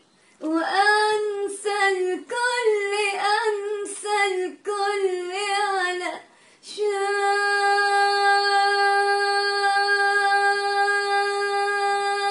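A woman singing unaccompanied: several ornamented phrases with short breaks for breath, then one long, steady held note over the last five seconds or so.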